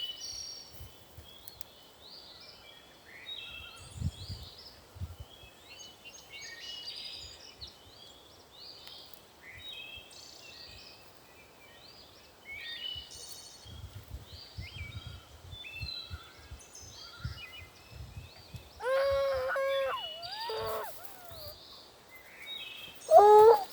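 Songbirds chirping and singing, with scattered low thuds. About three-quarters of the way through comes a loud, wavering pitched cry, and another loud cry starts right at the end.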